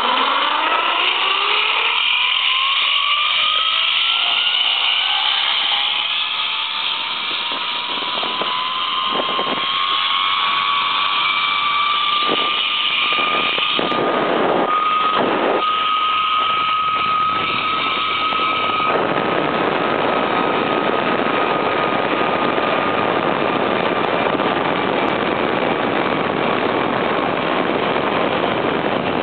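Zipline trolley pulleys running along the steel cable: a whine that rises in pitch over the first several seconds as the rider picks up speed, then holds steady. Under it runs a rushing noise of wind on the microphone that grows heavier about two-thirds of the way through.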